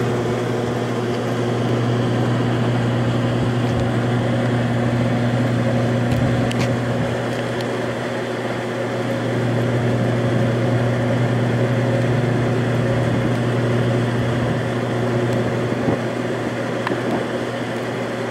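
Rooftop ventilation and air-conditioning equipment running with a steady low hum.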